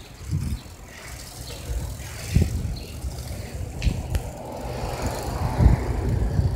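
Bicycle riding over concrete paths, with wind rumbling on the phone microphone and a few low thumps as it rolls along.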